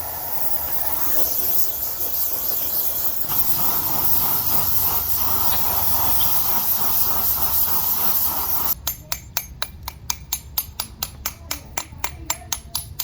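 A steady hiss, like a spray or air jet, for most of the span. It stops abruptly and gives way to a quick run of sharp, evenly spaced clicks, about five a second.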